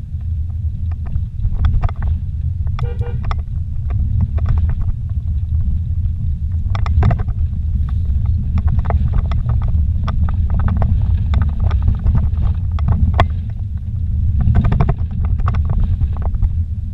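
Vehicle driving slowly along a rough dirt track, heard from inside the cab: a steady low rumble with frequent short knocks and rattles as it jolts over the ruts.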